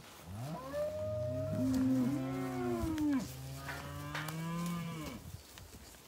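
Several dairy heifers mooing at once, long overlapping calls at different pitches, dying away about five seconds in.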